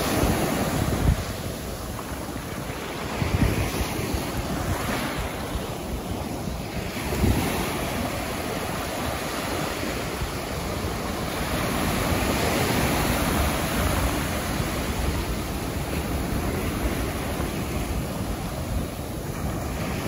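Small ocean waves breaking and washing up a sandy beach in a steady wash of surf. Wind buffets the microphone in short low rumbles, loudest about 1, 3.5 and 7 seconds in.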